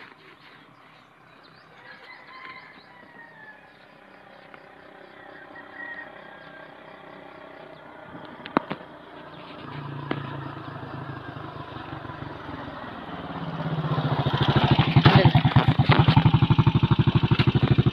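A motorcycle approaching, its engine faint from about ten seconds in and turning loud and close in the last four seconds, running with a rapid even firing beat.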